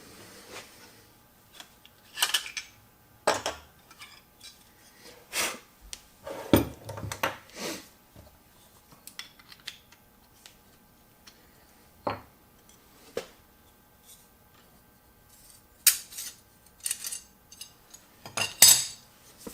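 Scattered metal clinks and knocks as a No. 5 bench plane and its parts are handled on the workbench: irregular separate strikes with pauses between, the loudest near the end.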